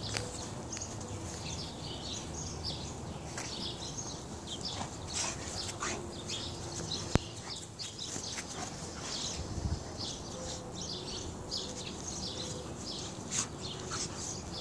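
Two Briards play-fighting on grass, with birds chirping throughout. One sharp click about seven seconds in.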